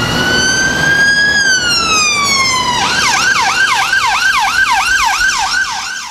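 Emergency vehicle siren over street traffic: a slow wail that rises, then falls, then about three seconds in switches to a fast yelp of about three falling sweeps a second.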